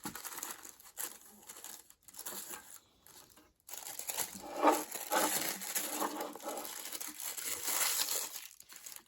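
Paper packaging crinkling and rustling as it is handled and unfolded. It comes in short bursts with gaps at first, then becomes denser and louder from about four seconds in.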